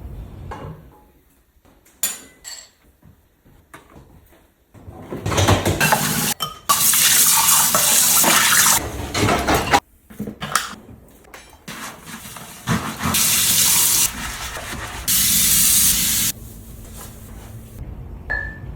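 Water running from a tap into a sink in two long spells that start and stop abruptly, with clinks and knocks of dishes around them.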